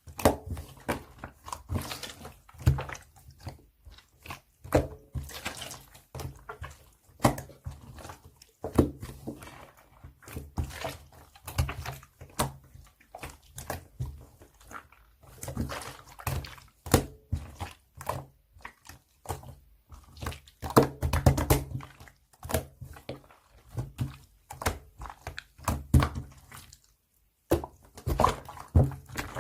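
Irregular knocks, taps and thuds, one after another, with a busier cluster of them about twenty seconds in.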